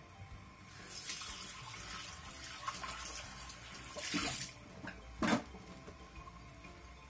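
Sliced shallots sizzling in hot cooking oil in a nonstick frying pan, a hiss that swells for a few seconds and then fades; a single sharp knock about five seconds in.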